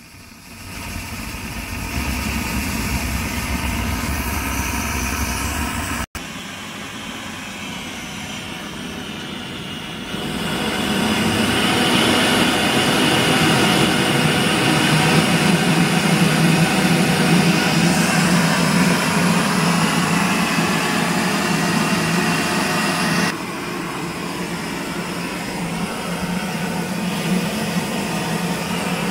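Max Sievert gasoline blowtorch burning, its pressurised flame jet making a steady, noisy rushing sound. The level changes abruptly three times, dropping about six seconds in, rising at about ten and dropping again near twenty-three.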